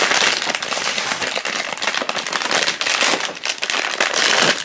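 Foil blind bag crinkling and crackling as hands handle it and work it open.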